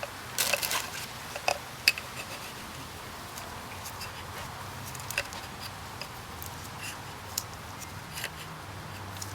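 Scattered light clicks and taps of small parts being handled during an oil filter change, with a short clatter about half a second in, over a steady low hiss.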